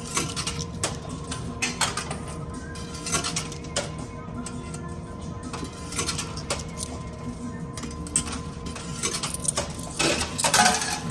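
Coins clinking and clattering in a coin pusher machine, with scattered drops and a dense burst of falling coins near the end, over the machine's steady tones.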